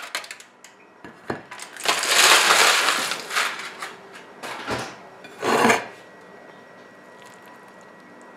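Aluminium foil crinkling and crackling as it is pulled off a sandwich and put aside, loudest about two seconds in, with a few light knocks.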